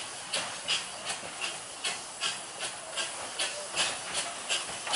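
A 2 ft gauge steam locomotive chuffing as it approaches, with steady exhaust beats about two and a half a second over a hiss of steam, growing slightly louder near the end.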